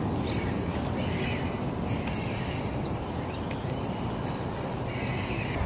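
Steady low outdoor background rumble with no distinct event standing out.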